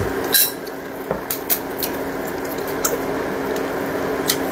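Steady buzzing hum and hiss from an electric induction cooker heating a pot of hot-pot broth. Several short, light clicks sound over it, the loudest about half a second in.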